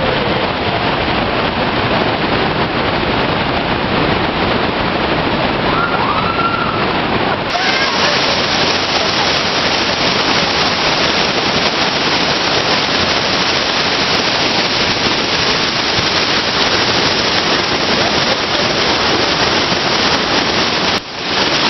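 Loud, steady rush of whitewater rapids churning over boulders, with faint human calls near the start and again around six seconds in.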